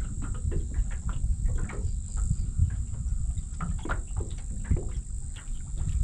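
Wind buffeting the microphone as an uneven low rumble, with small irregular splashes and knocks of water lapping against a small boat's hull, over a steady high-pitched hiss.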